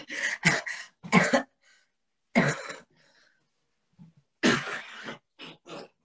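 A woman coughing repeatedly in several short fits, the last a longer cough followed by two quick ones: a lingering cough.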